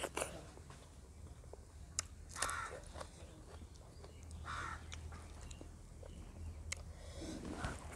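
Someone chewing a meal with a few wet lip smacks. Three short harsh bird calls sound in the background, the loudest sounds here.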